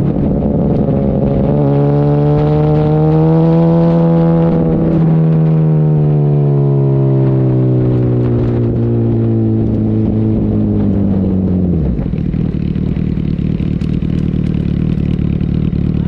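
2008 Yamaha YZF-R1's inline-four engine under way. Its pitch rises for a few seconds, then falls slowly as the bike decelerates, and the note drops away to a low, rough sound about twelve seconds in.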